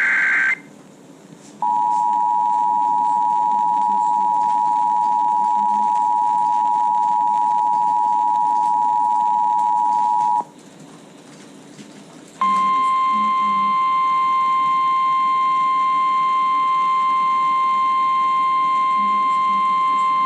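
Emergency alert tones heard over radio. The end of a warbling SAME data burst, then the two-tone EAS attention signal, a steady dual-pitched beep for about eight seconds. After a two-second pause comes the single-pitched NOAA Weather Radio 1050 Hz warning alarm tone for about nine seconds, announcing a severe thunderstorm warning.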